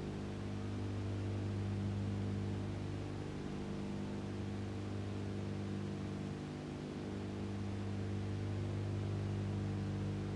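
Low, steady electrical hum, a stack of unchanging low tones over faint hiss, with no live sound on the archive videotape soundtrack.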